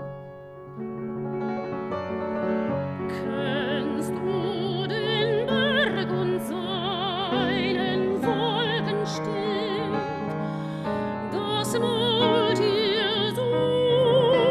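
Classical soprano singing a German art song (Lied) with a wide operatic vibrato, accompanied by a Petrof grand piano. The piano plays alone for about the first second before the voice comes in, and the singing grows louder toward the end.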